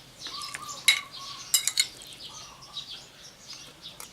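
Cutlery clicking against dishware several times, a quick cluster of clicks about a second and a half in, with birds chirping in the background.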